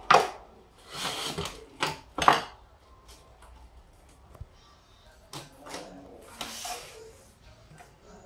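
Irregular knocks, clicks and scrapes of the printer's hard plastic parts being handled, loudest in the first two and a half seconds, then fainter scattered ticks and rubs.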